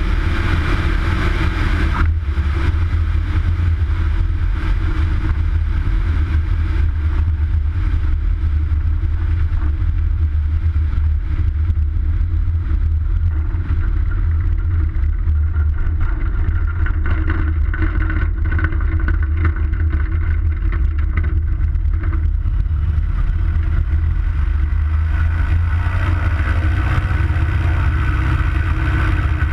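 High-wing single-engine light aircraft's piston engine and propeller running at low power as the plane rolls slowly after landing: a steady low drone with wind rush over the strut-mounted microphone. The engine note picks up slightly about 25 seconds in.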